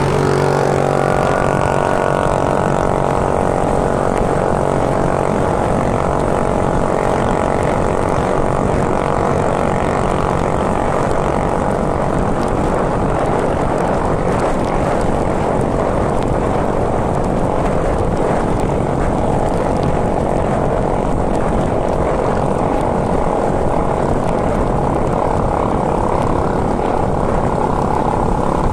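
Steady rush of wind and road noise from riding a mountain bike, with a constant hum underneath.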